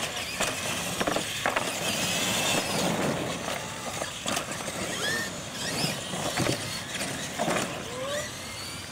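Radio-controlled monster trucks racing on concrete: drivetrains and tyres whirring, with repeated clacks and knocks as they run over and land off the wooden track ramps.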